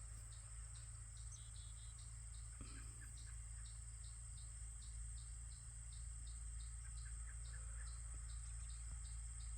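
Field insects calling: crickets chirping evenly about twice a second over a continuous high-pitched insect trill, with a few faint bird chirps. A low steady rumble sits underneath.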